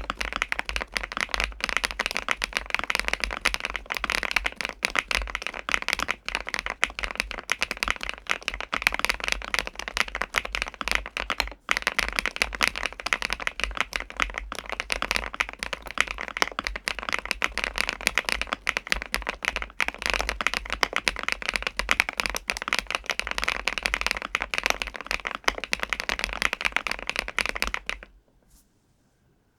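Fast, continuous typing on the KiiBOOM Phantom81 Lite mechanical keyboard, with Mochi switches on a PC plate in a foam-filled ABS case and PC Cherry-profile keycaps. It is a dense patter of key clacks that stops about two seconds before the end.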